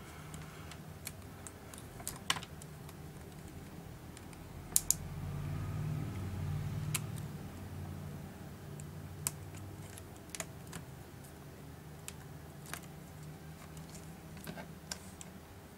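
Scattered light clicks and taps of fingers pressing a flex cable and its connector into the opened plastic chassis of a Samsung GT-P5200 tablet, at irregular intervals, the loudest a close pair about five seconds in. Under them runs a low steady hum that grows a little louder midway.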